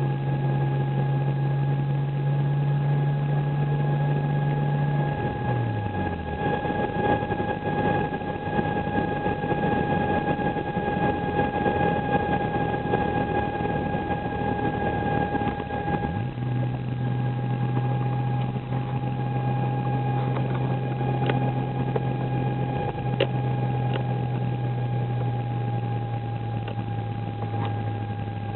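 Inside a car, the engine runs with road noise, along with an abnormal noise from behind the instrument cluster that repeats faster as road speed rises. The engine hum drops away about five seconds in and comes back about sixteen seconds in.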